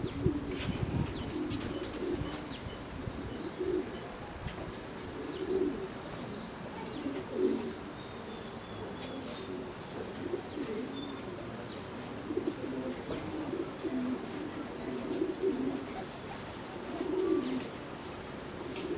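Racing pigeons cooing repeatedly in their loft, a low murmuring coo coming and going in overlapping phrases.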